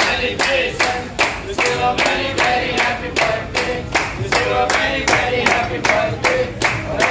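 A group of restaurant waiters clapping together in a steady beat, about two to three claps a second, while singing a birthday song.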